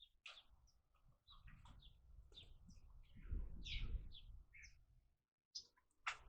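Birds chirping: many short, high chirps from several birds, over a low rumble that swells and is loudest between about three and four seconds in.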